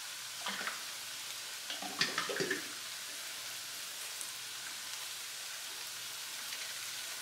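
Chicken and zucchini sizzling in a frying pan over a gas burner, a steady hiss of stir-frying on raised heat, with a few short knocks about half a second and two seconds in.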